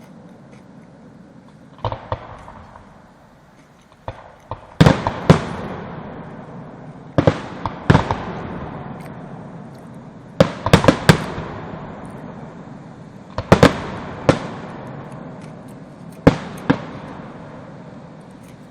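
Aerial fireworks bursting overhead: a run of sharp booms, often in pairs and quick clusters every few seconds, each followed by a rolling echo.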